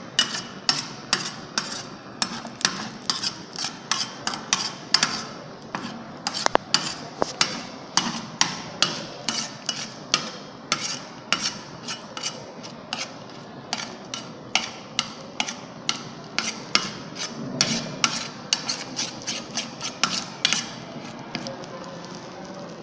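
A metal spoon knocking and scraping against a stainless steel tray, about two knocks a second, as it stirs egg white coagulating with heat. The knocks thin out near the end.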